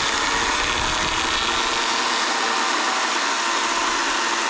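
EGO battery-powered electric chainsaw running at full speed with a steady whine, cutting through a log.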